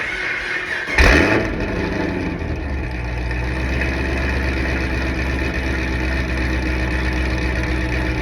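2013 Camaro ZL1's supercharged 6.2-litre V8 starting, flaring up about a second in, then settling to a steady idle after its oil and differential fluid change.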